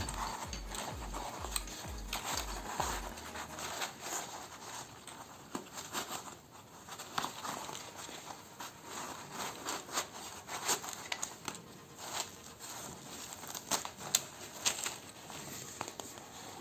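Handling noise from a plastic grenade replica and fabric equipment pouches: rustling and rubbing with scattered small clicks and knocks as the grenade is pushed into and pulled out of the pouches.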